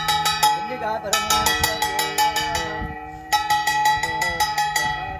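Hand-held puja bell (ghanta) rung rapidly and continuously, a fast clanging with a bright ringing tone. It breaks off briefly twice, about a second in and about three seconds in, then resumes.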